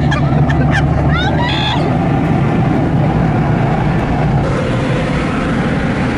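Car-wash dryer blowers running steadily: a loud rush of air with a low hum, blowing in through the open car window.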